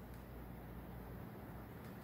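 Quiet room tone: a steady hiss with a low hum underneath, and two faint soft ticks, one right at the start and one near the end.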